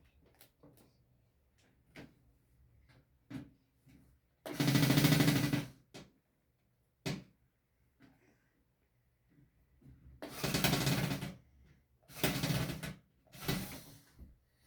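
Parts of an old TV being pulled apart and handled: scattered clicks and knocks, with four loud rasping scrapes, the first and longest about four seconds in, the rest bunched in the last five seconds.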